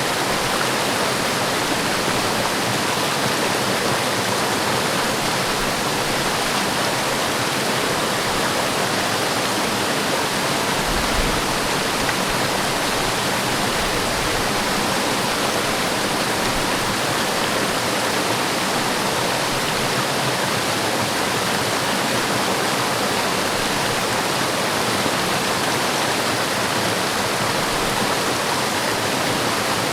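Forest waterfall pouring steadily: a constant, even rush of falling water with no breaks, and a brief low rumble about eleven seconds in.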